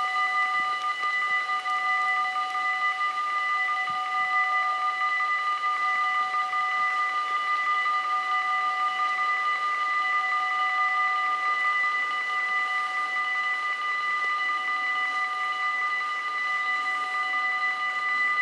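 Dutch level-crossing warning bells ringing continuously at a steady pitch, sounding while the half-barriers are down to warn that a train is approaching.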